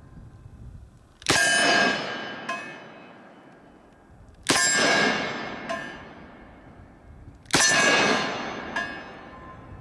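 Three shots from a Smith & Wesson 629 5-inch .44 Magnum revolver, about three seconds apart, each with a long ringing tail and a fainter echo about a second later.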